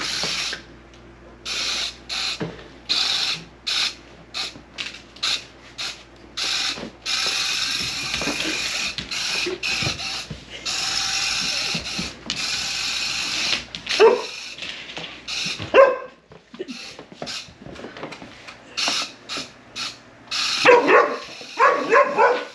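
Small geared motor of a remote-control spider toy whirring in many short on-off bursts as its legs are driven. A few short pitch-bending cries sound over it about 14 and 16 seconds in and in a quick cluster near the end.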